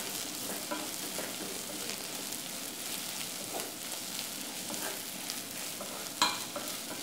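Sliced onions, green chillies and curry leaves sizzling in hot coconut oil in a pot while a wooden spatula stirs and scrapes through them, with one louder knock near the end.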